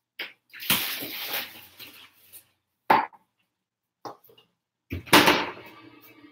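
Refrigerator being loaded: a couple of seconds of rustling and handling noise, a sharp click, then the door shut with a loud knock about five seconds in, followed by a short ringing.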